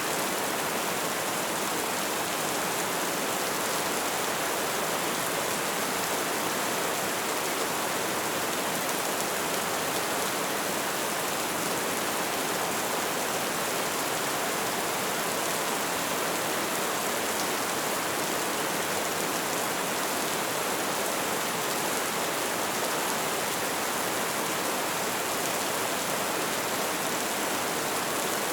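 Light rain falling steadily, an even hiss of drops with no thunder or other events.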